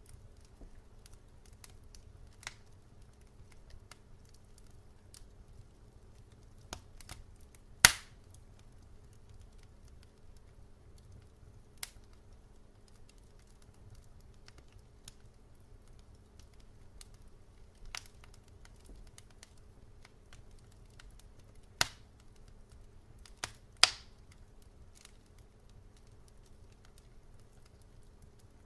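Wood fire crackling in a fireplace: scattered sharp pops and snaps, the loudest about eight and twenty-four seconds in, over a low steady rumble of burning.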